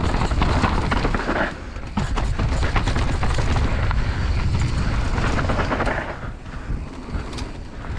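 Mountain bike rattling down a rough downhill trail: rapid knocks and clatter from tyres over rocks and roots and from the chain and frame, over a low rumble of wind buffeting the microphone. It eases off briefly about a second and a half in and again for a moment near the end.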